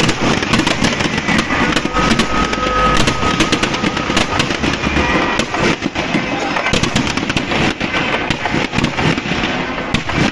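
Firecrackers packed inside a burning Ravana effigy going off in rapid, continuous bangs and crackles.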